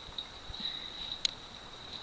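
Faint ticks from handling fat wood tinder, then one sharp click just past a second in, over a steady high-pitched hum.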